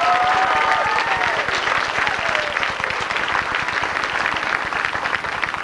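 Audience applauding, with a voice or two raised over the clapping in the first couple of seconds; the applause slowly thins toward the end.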